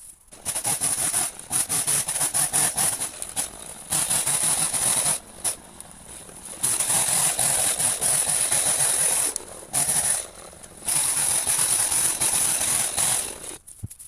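Two-stroke chainsaw bucking dead birch branches into firewood lengths, running at full throttle in cuts of one to three seconds, dropping back to a lower idle between cuts.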